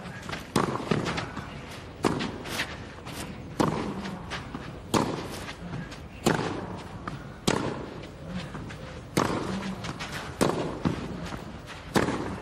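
Tennis racquets striking the ball in a baseline rally on clay. There are about nine sharp hits, roughly one every second and a half, with fainter knocks between them.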